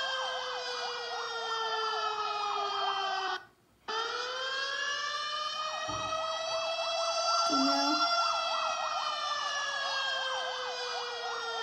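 Cartoon siren sound effect standing for the New York Yankees home run siren, played through laptop speakers: a wailing tone that slowly falls, cuts out briefly about three and a half seconds in, sweeps back up and falls again, with a quicker warbling tone over it.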